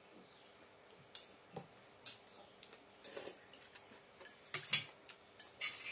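Metal spoons tapping and scraping against soup bowls, a ceramic bowl and a glass bowl, in scattered light clicks that come more often in the second half, with a few slurps of rice-noodle soup.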